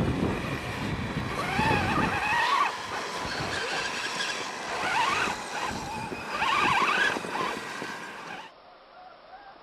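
Electric motors and gear trains of radio-controlled scale off-road trucks whining, rising and falling in pitch with the throttle in several spurts. The sound drops off suddenly near the end.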